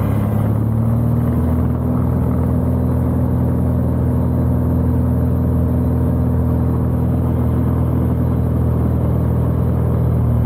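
Cessna 180's six-cylinder Continental O-470 engine and propeller droning steadily in flight, heard from inside the cockpit.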